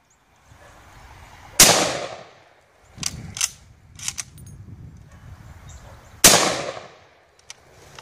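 Two shots from a Mosin-Nagant 91/30 bolt-action rifle in 7.62x54R, about a second and a half in and again about six seconds in, each trailing off in an echo. Between them come the short metallic clicks of the bolt being worked to chamber the next round.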